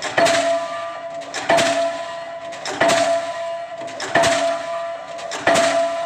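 Diesel pile hammer driving a PHC spun concrete pile: five blows about 1.3 seconds apart, each a sharp bang followed by a ringing tone that fades.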